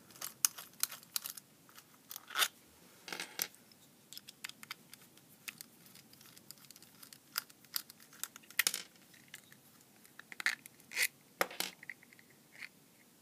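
Precision screwdriver backing bolts out of a small plastic turbine housing: scattered small clicks and short scrapes of metal on plastic as the case is handled.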